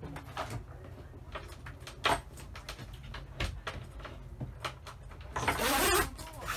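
Zipper on a boat's canvas cockpit tent being pulled open: one loud rasping pull with a rising-and-falling pitch near the end, after scattered knocks and clicks on the boat.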